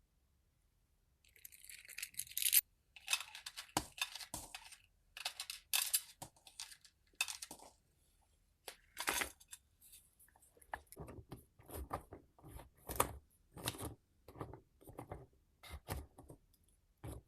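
Paper crinkling and rustling in handled bursts, as when herbal medicine is being wrapped. From about ten seconds in it turns into a run of shorter, evenly spaced rustles, about two a second.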